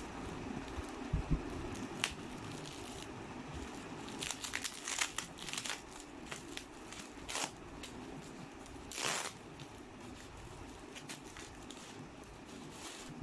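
Packaging being handled during an unboxing: a couple of low thumps just over a second in, then crinkling and rustling in short bursts, with a longer rustle about nine seconds in.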